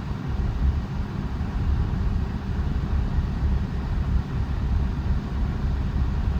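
Air conditioning blower of a Mercedes SLK32 AMG pushing air out of the dash vents: a steady rush of air over a fluttering low rumble.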